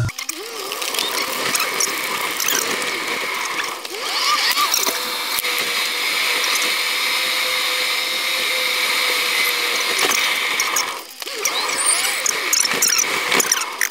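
Sound of a car in motion heard from inside the cabin: a steady high whir with no low rumble and some wavering squeaky tones, dropping out briefly about eleven seconds in.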